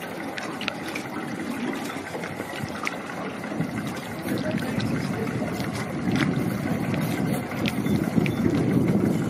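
Steady low rumble of a riverboat idling, with water lapping at the hull, louder in the second half, and a few faint clicks.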